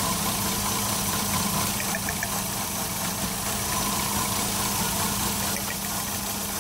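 Toyota Yaris four-cylinder petrol engine idling steadily during a coil-pack test. The engine has multiple misfires, traced to cylinders 2 and 3.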